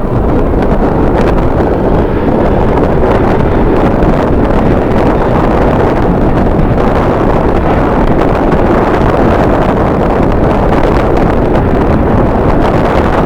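Strong wind buffeting the microphone: a loud, steady rush of low noise without any clear tone.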